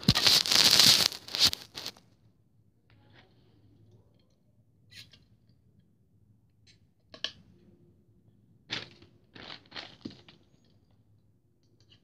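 Loud rustling and scraping for about the first two seconds as the camera is handled and set down on the carpet. After that come a few short, scattered rustles and crinkles.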